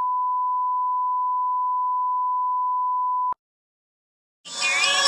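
Steady single-pitch test tone, the beep that goes with television colour bars, cutting off suddenly about three seconds in. After a second of silence, music begins near the end.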